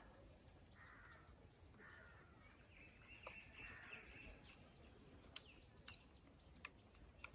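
Near silence with faint outdoor ambience: a steady high insect drone, a few faint bird calls in the first half, and some soft scattered clicks.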